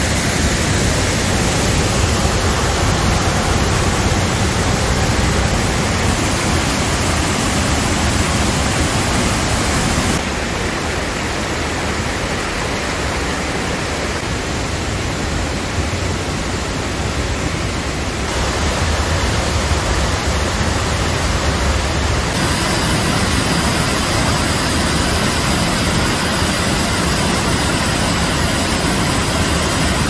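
Fudō Falls waterfall pouring into its rock pool: a loud, steady rush of falling water. Its level and tone change abruptly about ten, eighteen and twenty-two seconds in.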